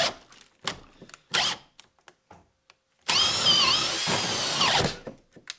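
Makita brushless hammer drill in drill mode on speed 2, boring a 3/4-inch bit into a pressure-treated 4x4. The motor whine sags in pitch and stops just after the start, a few short trigger blips follow, then about three seconds in it runs under load for some two seconds, its pitch dipping before it winds down.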